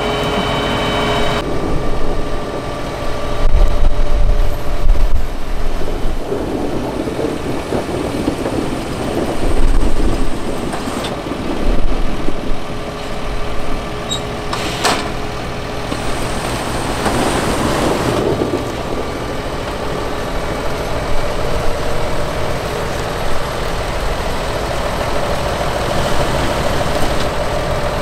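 Fendt 724 Vario tractor and Grimme SE 150-60 potato harvester running: a steady diesel engine sound with stretches of rumbling and rattling as potatoes pour from the harvester's bunker into a trailer. A single sharp knock comes about halfway through.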